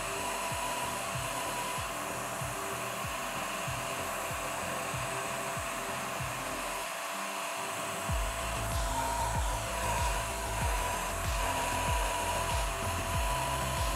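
A 300-watt CNC router spindle running at a steady whine while its small bit mills a contour into a thin metal sheet, under a steady rush of air. Background music with a steady beat, its bass coming in stronger about eight seconds in.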